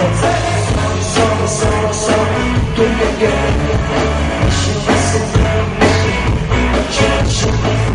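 Loud music with a steady beat: a rock-style song with drums, bass and guitar, and a singing voice.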